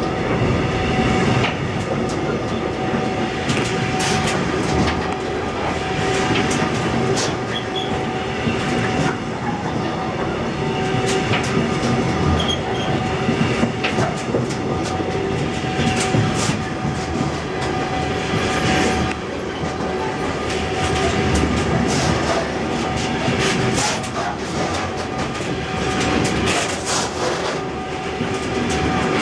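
Freight train of hopper wagons rolling past close by: a steady wheel rumble with irregular clacks of wheels over the rail joints and a thin steady tone running under it.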